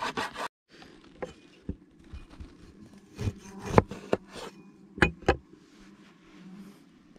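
A knife chopping quickly on a wooden cutting board, then, after a brief gap, a cleaver cutting a lime in half, giving a handful of separate sharp knocks on the board, the loudest near the middle.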